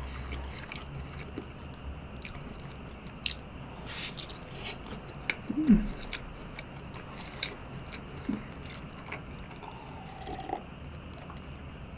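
Close-miked chewing of soft, egg-soaked French toast: wet mouth clicks and smacks scattered throughout, with a short hummed "mm" about six seconds in. Near the end she drinks from a glass of milk.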